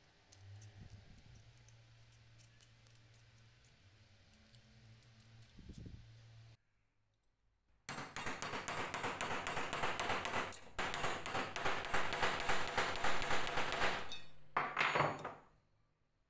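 Faint clicks of thin sheet metal being bent with pliers over a low hum. Then a long run of rapid, sharp hammer taps on a punch, dishing and shaping a thin sheet-metal corner protector over a wooden form on an iron plate, ending in one loud strike.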